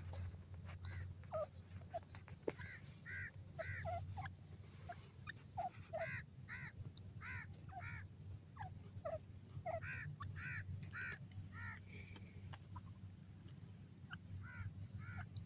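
Grey francolin giving soft, short chirping calls, often two or three in quick succession, over a low steady rumble.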